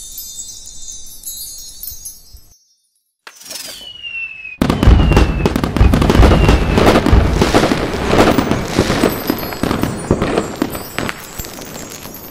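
Firework sound effect: a whistle falling in pitch, then a sudden loud bang and dense crackling that slowly fades over several seconds. Before it, high chime tinkles die away into a moment of silence.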